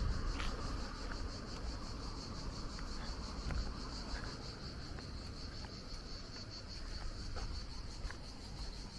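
Insects chirring, likely crickets or cicadas: a steady, high, fast-pulsing trill, over a low rumble and a few faint ticks.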